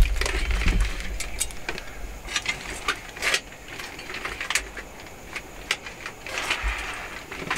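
Plate armour clinking and rattling as a person in a steel helmet and gauntlets shifts and settles into a seat: scattered light metallic clicks and jingles, with a low bump right at the start.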